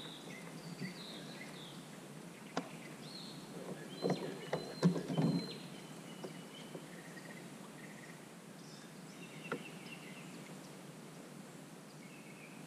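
Small birds chirping on and off over a faint steady outdoor hiss. About four to five seconds in there is a short cluster of knocks and thumps, the loudest sound, from the bass being handled in the fishing kayak.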